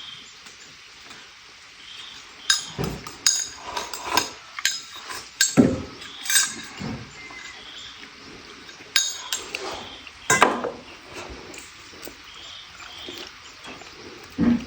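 Irregular clinks and knocks of kitchenware, such as utensils striking pots or dishes, about a dozen sharp hits with short ringing, a few carrying a duller thump.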